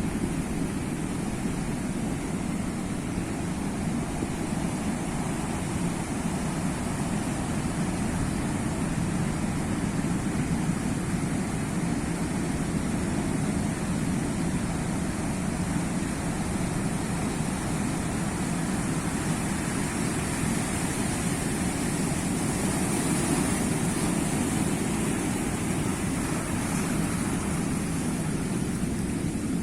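Sea waves washing on a shore, a steady rushing surf noise that swells a little past the middle.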